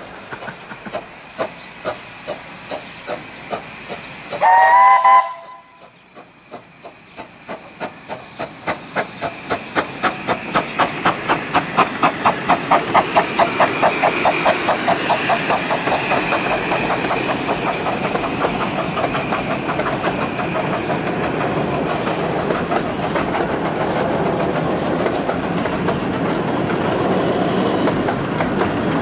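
15-inch gauge steam locomotive giving a short chime whistle about four seconds in, then coming up and running past: quick regular beats that grow louder, about four a second, followed by a steady rushing clatter as its carriages roll by.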